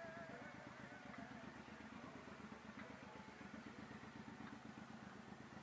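Suzuki Boulevard M109R's V-twin engine running at low revs, faint and steady, with an even pulsing beat.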